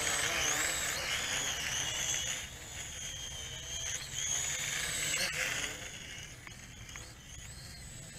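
Small toy quadcopter's motors and propellers whining in flight, the pitch wavering up and down as the throttle changes, growing fainter after about six seconds.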